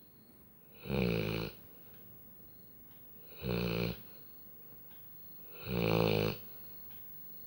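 Labrador retriever snoring in its sleep: three loud, human-like snores about two and a half seconds apart, each lasting under a second.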